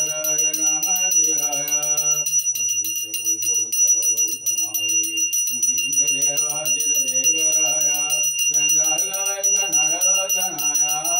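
A puja hand bell rung rapidly and without pause, its high ringing tone steady throughout, while a man's voice chants over it.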